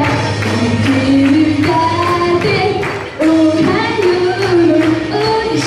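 A woman singing into a handheld microphone over a recorded backing track with a steady percussive beat.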